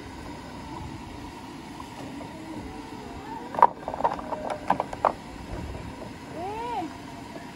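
Hollow bamboo putu molds clacking against each other and the wooden tray as they are handled: a quick run of sharp knocks in the middle, over a steady low background noise. A short tone that rises and falls sounds near the end.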